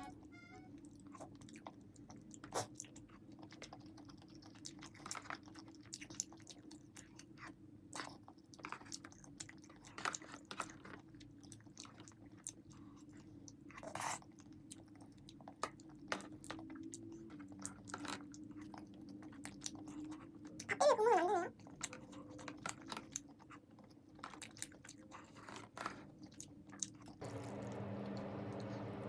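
Close-miked mouth sounds of eating rosé jjimdak: chewing, with frequent short smacks and clicks. Near the two-thirds mark there is a brief wavering tone, and shortly before the end a steady low background hiss comes in.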